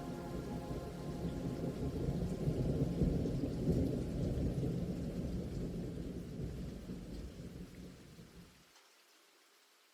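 Rolling thunder with rain, part of the background soundtrack: a low rumble that swells about three seconds in, then fades away to near silence over the last few seconds.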